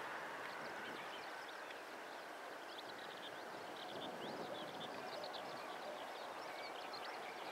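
Faint, steady rush of a Boeing 777's jet engines on final approach, still some distance away. Small birds chirp rapidly over it from about two and a half seconds in.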